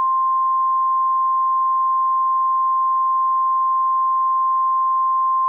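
NOAA Weather Radio 1050 Hz warning alarm tone: a single steady high tone over faint radio hiss, sounded ahead of a severe thunderstorm warning.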